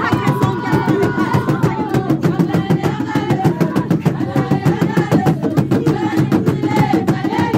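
Fast, steady drumbeat with women singing together over it, in call-and-response style ceremonial song.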